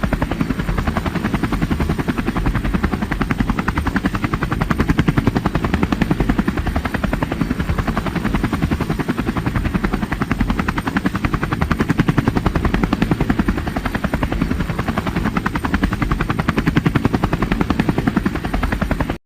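Helicopter rotor sound, a steady fast beat of blade chop over engine noise, with no change in pitch or speed; it cuts off suddenly at the end.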